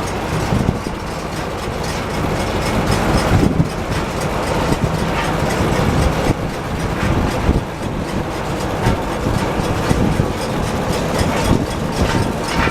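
2011 Case IH RB464 round baler running off a tractor's PTO, its rollers and chains making a steady rattling clatter over the tractor's engine.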